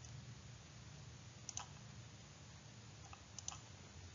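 Near silence with faint computer mouse clicks: two quick pairs, about a second and a half and three and a half seconds in.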